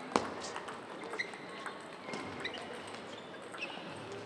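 Table tennis rally: sharp clicks of the ball off the rackets and the table, the loudest just after the start, over the steady noise of a sports hall with other games in play.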